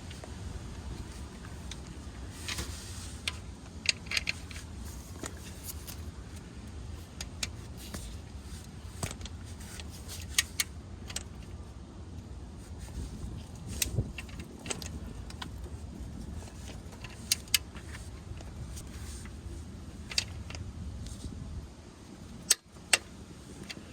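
Metal hand tools clinking and clicking, a socket wrench at work on the oil drain plug, in short sharp irregular clicks over a low steady background rumble.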